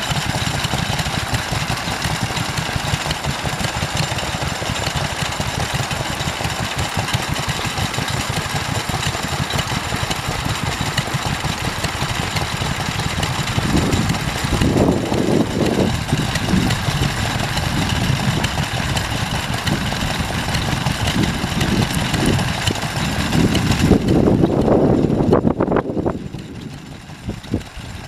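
Vintage stationary engine running steadily, its firing beats a fast even rhythm. Heavier low rumbles come in twice, and the sound drops away abruptly near the end.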